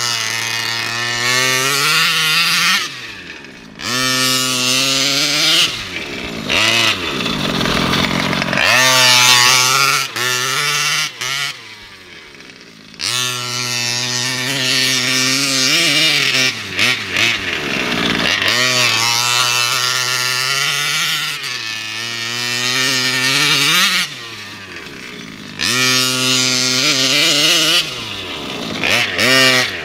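Kraken VEKTA.5 1/5-scale RC truck's gas engine revving hard, the pitch climbing and falling over and over, with several short lulls when the throttle is let off.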